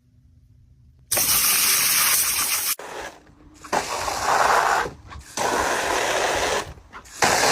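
Water spraying hard in four bursts of a second or so each, with short gaps between.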